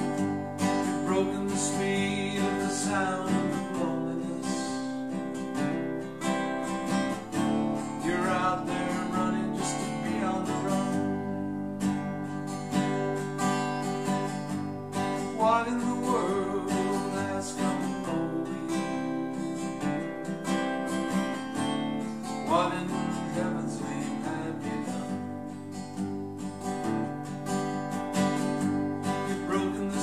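Takamine steel-string acoustic guitar strummed steadily through an instrumental break, chords changing among G, C and D. A wavering melody line rises and falls over the chords now and then.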